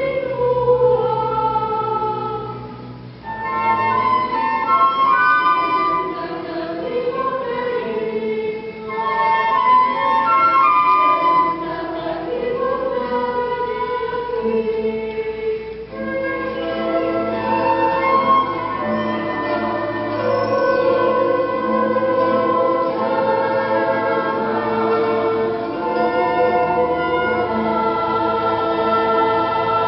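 Choir singing a Nahuat-Pipil song in sustained chords, with short pauses between phrases about three seconds in and again about sixteen seconds in.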